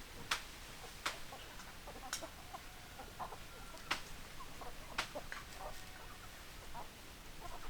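Chickens clucking softly, with five sharp taps spaced irregularly through it.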